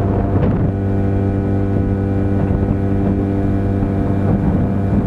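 15 hp outboard motor running at a steady speed, pushing a small boat along, with an even, unchanging engine note.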